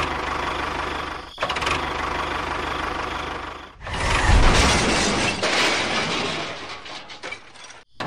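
Tractor engine running, heard in short spliced stretches that break off abruptly; it is louder and fuller from about four seconds in.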